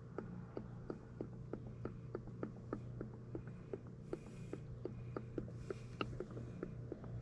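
Engine oil glugging out of a 4-litre jug through a funnel into an ATV's oil filler as it is poured slowly: a steady run of soft glugs about three a second, with two short bursts of hiss around four and six seconds in, over a faint low hum.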